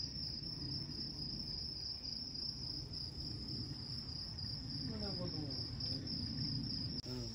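Crickets trilling in one continuous high-pitched note, over a low background rumble; a faint voice comes in briefly about five seconds in.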